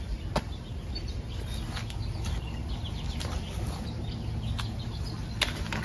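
Outdoor background with a steady low rumble, faint scattered bird chirps and a few sharp clicks of handling.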